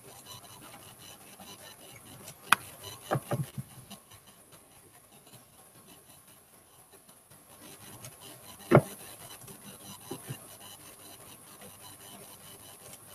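A few sharp clicks and knocks over a low steady hiss: a single click about two and a half seconds in, a quick run of three just after, the loudest knock near nine seconds in, then two faint ones.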